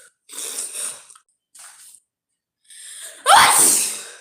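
A woman sneezing in a sneezing fit: short breathy catches, then one loud sneeze about three seconds in, with a sharp rising-then-falling cry.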